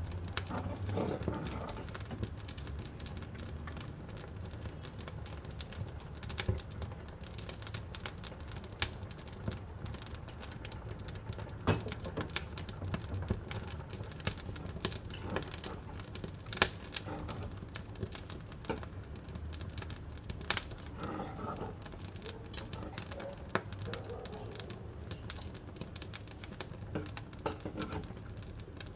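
Wood fire crackling in a wood-burning stove: irregular sharp pops and snaps over a steady low rumble.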